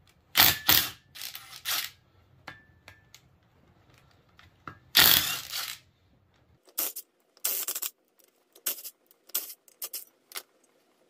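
Cordless impact wrench with a 14 mm socket hammering loose the bolts that hold a brake rotor to its wheel hub. It comes in a dozen or so short bursts, the longest and loudest about five seconds in.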